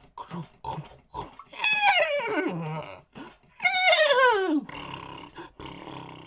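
A man imitating a horse with his voice: a few short clicks, then two long whinnies that fall in pitch with a wavering tremble, followed by two breathy, snort-like blows.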